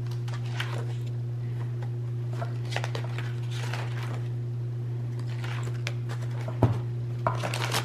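Pages of a spiral-bound paper activity book being turned and handled, with light paper rustles and small clicks and one sharper knock about six and a half seconds in, over a steady low hum.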